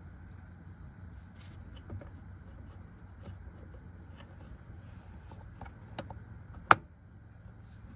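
Scattered light clicks and taps of parts being handled, with one sharp click a little before the end, over a low steady hum.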